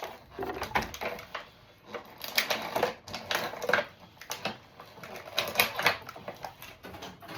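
Hard plastic packaging clicking and crinkling in irregular bursts as small action-figure accessories are handled and pulled out of a blister tray.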